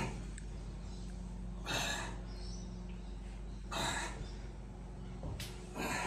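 A man breathing hard with each rep of overhead barbell presses: three short breaths about two seconds apart, over a steady low hum.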